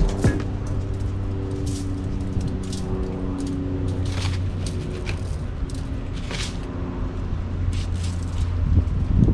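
Brown sugar being shaken and tapped through a fine mesh strainer onto a rack of ribs: short scratchy rustles, several times a second in bursts, over a steady low hum.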